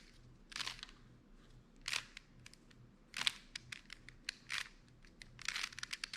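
Rubik's cube being twisted by hand through an algorithm: quick plastic clicks and clacks of the layers turning, in short irregular bursts.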